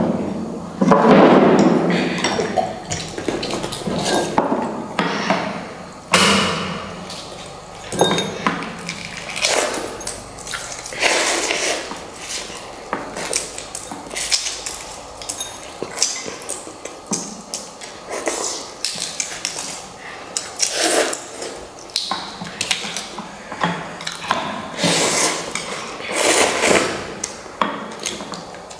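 Rapid eating of instant noodles: chopsticks and spoons clicking and knocking against bowls many times over, with bursts of noisy slurping of noodles and broth, loudest in the first couple of seconds.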